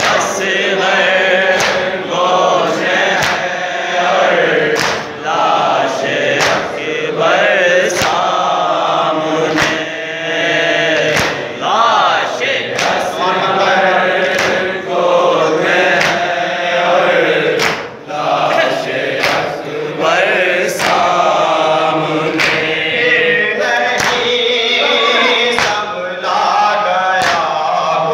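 A man chanting a noha, a Shia lament, through a microphone with a group of voices joining in, kept in time by sharp open-hand slaps on chests (matam) about once a second.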